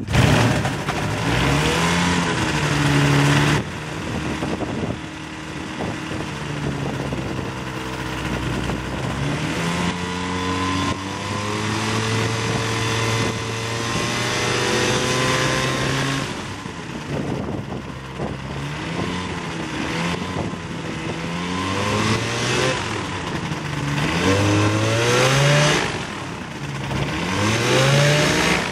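Rotax 532 two-stroke twin-cylinder aircraft engine starting right at the beginning and running with the propeller turning. It is revved up and down several times, holds a steady speed for a few seconds in the middle, then gets a run of quick throttle blips in the second half.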